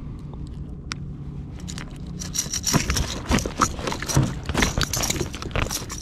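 Rapid metallic clicking and scraping of fishing pliers working on a lure's hooks and split ring, starting about two seconds in. A steady low hum runs underneath.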